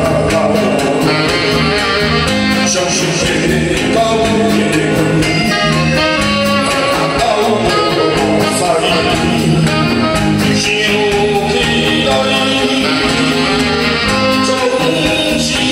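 A man singing a slow ballad through a handheld microphone, backed by a live band with a drum kit keeping a steady beat and a saxophone.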